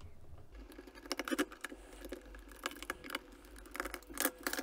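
A Phillips screwdriver backing screws out of a multimeter's plastic case: irregular light clicks, scrapes and small rattles, with a cluster about a second in and more near the end.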